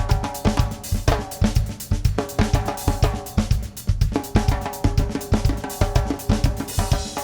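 Instrumental music with a driving drum kit beat: bass drum, snare, hi-hat and cymbals over held pitched notes.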